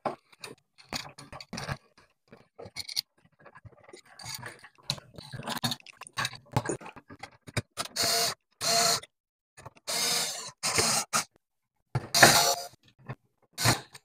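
Clicks and scrapes as cable and a light switch are pushed into a metal switch box. Then a small cordless screwdriver runs in several short bursts, driving in the screws that hold the switch in the box.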